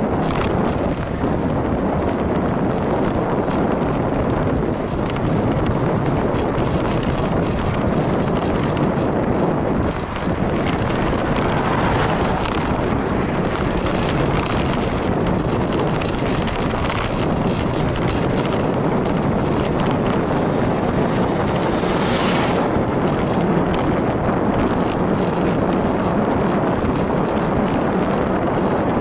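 Steady, loud wind rush over the microphone of a camera riding on a moving bicycle, with low road and tyre rumble under it; a brief, higher-pitched rush about 22 seconds in.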